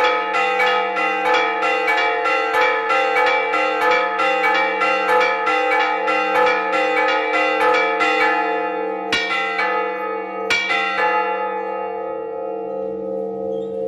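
Large bronze church bell struck by its clapper, swung on a rope, about three strokes a second in a rapid festive peal (repique). The strokes stop about eight seconds in, a few lone strikes follow, and the bell's ringing then fades away.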